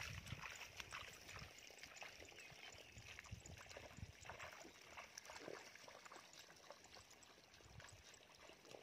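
Faint footsteps splashing and squelching through shallow paddy water and mud, irregular and slowly fading toward the end.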